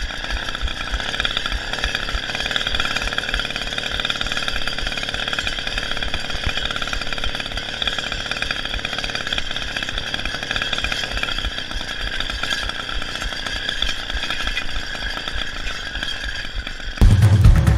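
Small petrol engine of a motorized bicycle running steadily under way. Near the end it cuts off suddenly and music begins.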